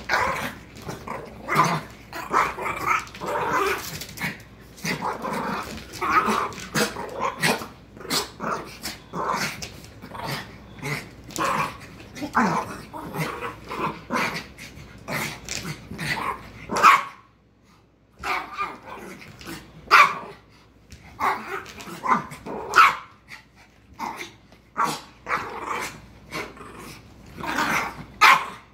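Small dogs play-growling and barking in quick, irregular bursts with some yips while they wrestle a cat, broken by a lull of about a second past the middle.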